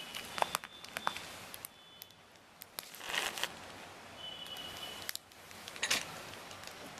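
Hand-handling noises from crafting: light clicks and rustling of fingers, paper and a plastic packet as small pearls and stones are picked up and set down. A louder rustle comes about three seconds in and another near six seconds.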